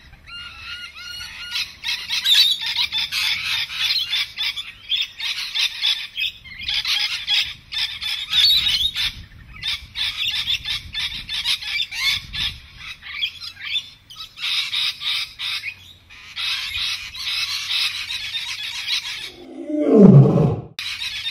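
Many small birds chattering in bouts with short pauses. Near the end a lion gives one loud call that falls in pitch, the loudest sound here.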